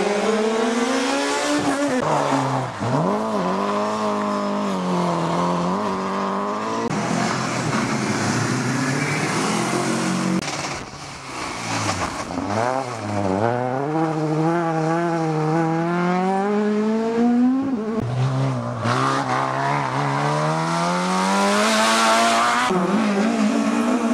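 Rally car engines revving hard, one car after another, each accelerating away with the pitch climbing through a gear and dropping at each change. Among them is a Mk2 Ford Escort.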